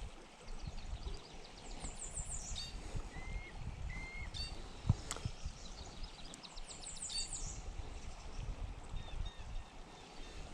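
Songbirds singing outdoors: twice, a quick series of high notes, with short whistles and chirps between, over a low steady rumble. A single sharp tap sounds about five seconds in.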